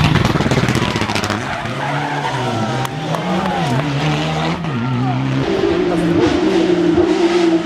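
Rally car engine revving up and down through quick gear changes and throttle lifts, then holding a higher, steady note from a little past halfway, with tyres sliding on the stage surface.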